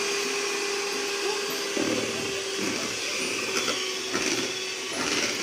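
Electric hand mixer running with its beaters in a bowl of cake batter, a steady motor whine.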